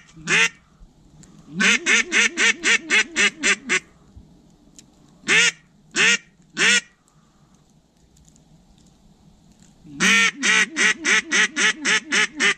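Duck call blown in quick runs of loud quacks: a run of about ten near the start, three single quacks in the middle, and another run of about ten near the end. This is calling meant to coax circling ducks in to land.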